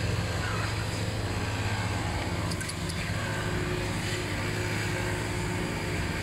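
Steady low hum of an idling motor-vehicle engine, unchanging throughout. A few faint clicks about two and a half seconds in come from a dog chewing dry kibble.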